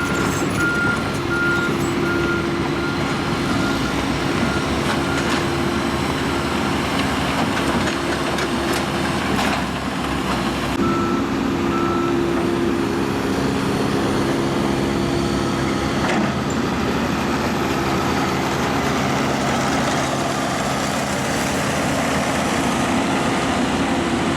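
John Deere 160G excavator's diesel engine running steadily. Its motion alarm beeps in an even series of short single-pitch beeps for the first five seconds and again briefly near the middle. A few sharp knocks come about ten and sixteen seconds in.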